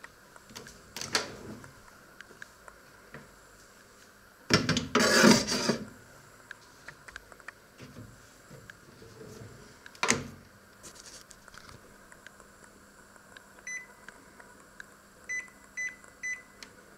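Clatter at a combination microwave oven as a bread roll goes onto its metal rack, a sharp knock about ten seconds in as the door shuts, then four short high beeps from its control panel as buttons are pressed near the end.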